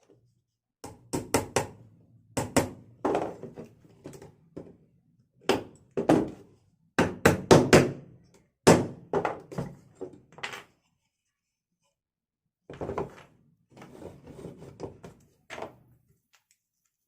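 Irregular wooden knocks and thunks, one to several a second, as small wooden bird-cage parts are tapped and knocked together during assembly; they stop for about two seconds, then come back more lightly.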